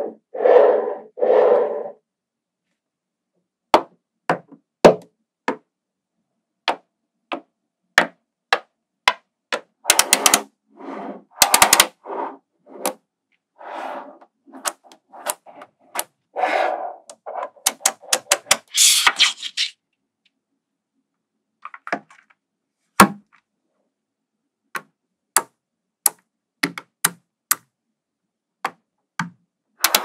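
Small magnetic balls snapping and clicking against each other as they are pressed into columns and flat sheets: sharp clicks, some single and some in quick runs, with short stretches of rattling as groups of balls settle together.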